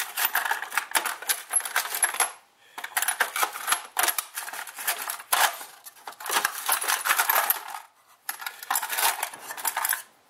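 Small metal hand tools clinking and rattling as they are rummaged through in search of the right size bit, in four bursts of a second or two each with short pauses between.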